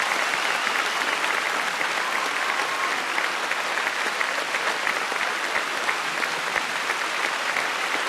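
Concert audience applauding steadily, a dense clatter of many hands clapping at the end of a song.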